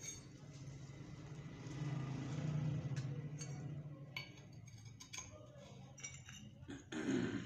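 Light metallic clinks of automatic transmission parts being handled, a steel clutch drum turned and set down. Under them a low hum swells about two seconds in, then fades.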